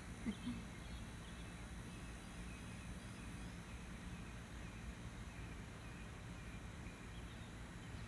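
Quiet outdoor ambience: a steady low rumble with a few faint, high chirps scattered through it.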